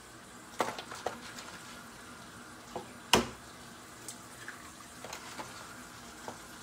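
Hen's eggs being cracked and broken open into a bowl by hand: several short sharp cracks, the loudest about three seconds in, over a faint steady sizzle of oil heating in pans on the stove.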